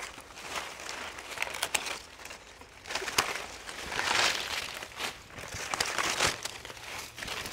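Leafy guava branches rustling and crackling as they are handled and cut back during pruning, in uneven swells, with several sharp clicks.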